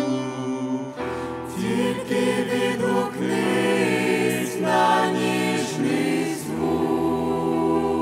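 Choir singing a Ukrainian hymn in harmony. The voices move through a phrase and settle on a long held chord a little past halfway through.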